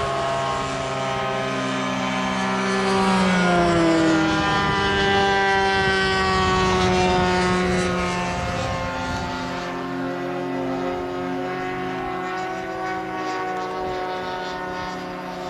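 Two-stroke O.S. 1.60 glow engine of a giant-scale RC sport plane running in flight. Its pitch rises briefly and then slides down as the plane passes overhead and climbs away, and the sound fades over the second half.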